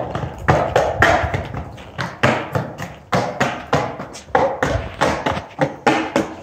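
Skateboard on a concrete floor: a string of sharp clacks and thumps from the board and wheels hitting the concrete, two or three a second and unevenly spaced, growing fainter toward the end.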